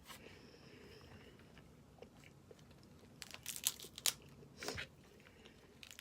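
Snow crab legs being cracked and eaten close to the microphone: quiet at first, then a few sharp crunches of shell in the second half.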